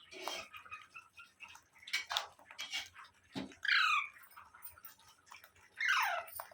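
Pet parrot calling: scattered short chirps and two louder, harsh calls that fall in pitch, one about halfway through and one near the end.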